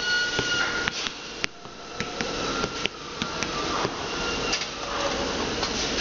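Tire-retreading shop machinery running with a steady noise, irregular clicks and knocks, and a few short high-pitched squeals.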